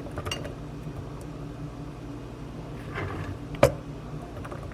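Steady low hum of room tone, with one sharp clink or knock of a kitchen item against a hard surface about three and a half seconds in.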